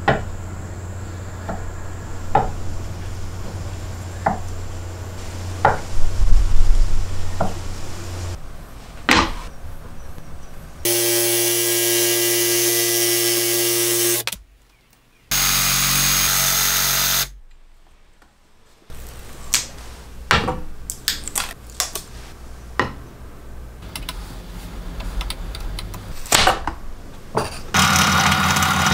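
Makita JV184 18-volt cordless jigsaw running in two loud bursts of a few seconds each, each cut off suddenly, between scattered clicks and taps of the tools and workpiece being handled. Near the end a drill press starts up.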